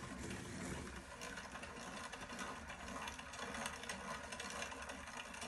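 3D-printed hand-crank generator being cranked: its plastic herringbone gears and magnet rotor whir steadily.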